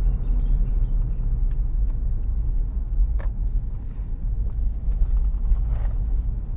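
Honda S660 roadster driving slowly, a steady low rumble of engine and road noise heard from inside the cabin.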